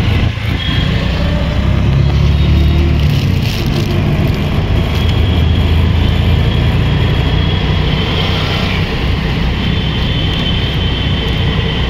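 Auto-rickshaw engine running steadily, heard from inside its open cabin as it drives through city traffic. Under it lies a constant rumble of road and traffic noise.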